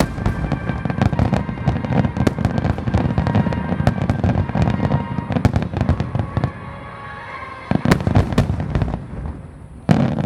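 Aerial fireworks display: a dense run of booming bursts and crackling, which thins out about six and a half seconds in, then a few loud bangs about eight seconds in before it dies down.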